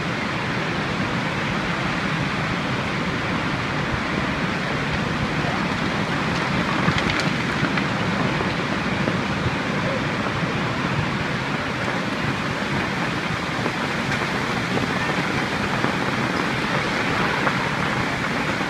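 A heavy hailstorm coming down steadily, a dense, even hiss of hailstones and rain hitting the ground, with one sharper tick about seven seconds in.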